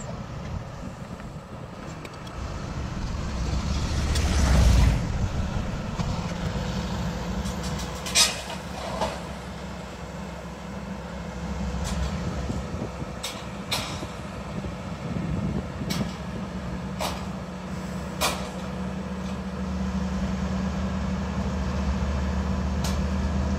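Diesel engine of a Volvo crawler excavator running under load as its boom lifts a toppled truck, swelling about four seconds in and rising again near the end. Several short sharp knocks sound through the middle.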